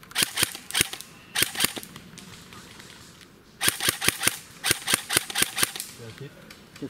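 Airsoft guns firing: four short volleys of sharp cracks, a few quick shots in each, with pauses between the volleys.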